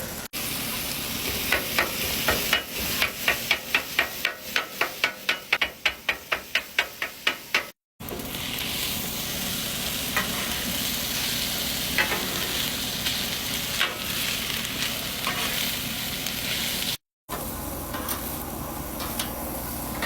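Food sizzling on a Blackstone flat-top griddle, a steady hiss. In the first part a quick run of sharp knocks, about four a second, sounds over the sizzle.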